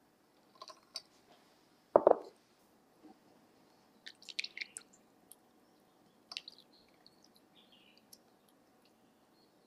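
Kitchen handling sounds around a glass of milk on ice: a single heavy knock about two seconds in, then a cluster of sharp clicks and clinks about four to five seconds in, with a few lighter clicks later.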